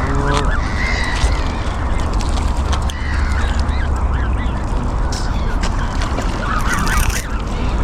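Waterfowl calling, ducks and geese: a quick run of short honks in the first second, then scattered calls, busiest near the end, over a steady low rumble.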